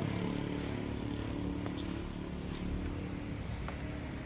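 An engine running steadily with a low, even hum, with a few faint clicks.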